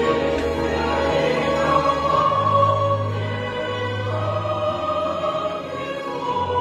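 Choral music: voices holding long sustained chords that change every second or two over a low bass note.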